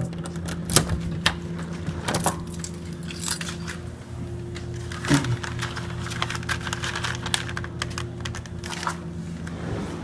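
Scattered clicks and light rattles of a door's deadbolt and knob being handled as the door is opened and closed, over a steady low hum.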